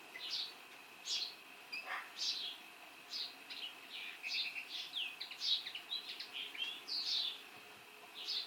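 Male common linnet singing: a run of quick, twittering notes and short trills in loose phrases, with a faint steady high tone behind them.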